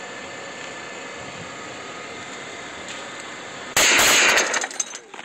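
A steady hiss, then about three and a half seconds in a Dillon Aero M134D 7.62 mm minigun fires a short burst of under a second, the shots merging into one continuous sound that trails off in echoes.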